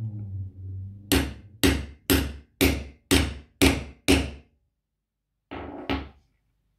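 Hammer striking a 15 mm grommet-setting punch held upright in a guide: seven sharp blows about two a second, then after a pause two more knocks near the end. The blows crimp a metal grommet through fabric over a wooden block.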